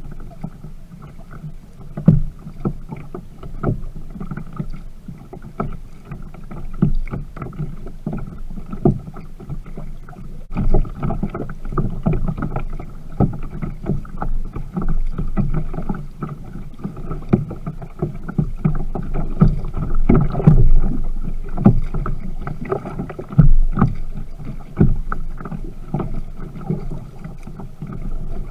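Viking Profish Reload sit-on-top kayak under way: water sloshes and splashes against the hull, with many irregular short knocks and splashes as it is paddled.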